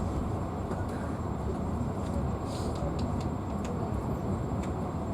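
Passenger train in motion, heard from inside the carriage: a steady low rumble of wheels on the rails, with a few light clicks about halfway through.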